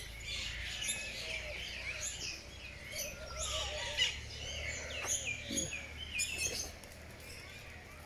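A flock of small caged birds chirping and twittering in an aviary, many quick short chirps overlapping throughout, with a lower wavering call about three seconds in.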